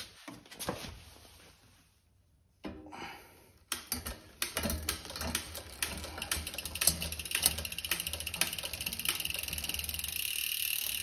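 Mountain bike drivetrain turned over by hand while shifting from the tallest to the lowest gear. From about four seconds in, a dense run of mechanical clicking and ratcheting runs steadily, as the chain runs and climbs across the cassette cogs.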